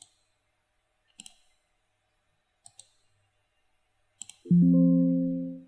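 Computer mouse clicking, a few sharp clicks and double clicks spread over several seconds. Near the end a steady pitched electronic tone plays for about a second and fades, the loudest sound here: a note or sample previewed in the music software.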